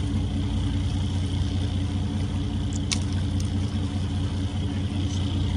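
Boat engine running steadily at low speed, a continuous low drone, with a single sharp click about three seconds in.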